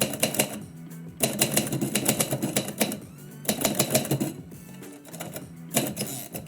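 Typewriter keys striking in quick runs of clacks, broken by short pauses, over steady background music.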